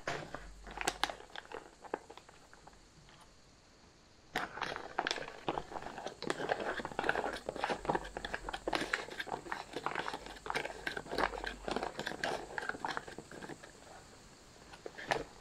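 A spoon stirring rehydrating freeze-dried roast beef and vegetables inside a foil-lined meal pouch, the pouch crinkling and crackling with each stir. It stirs briefly, pauses for a few seconds, then stirs steadily for most of the rest before easing off near the end.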